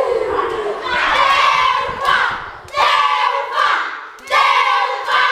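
A group of schoolchildren chanting and shouting in unison, in several loud bursts with brief breaks between them.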